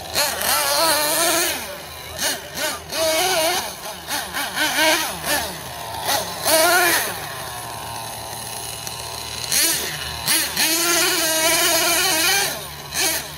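Nitro RC monster truck's small two-stroke glow engine, revving up and falling back again and again as the throttle is worked while the truck drives off-road. It comes with several short bursts of loud rushing hiss.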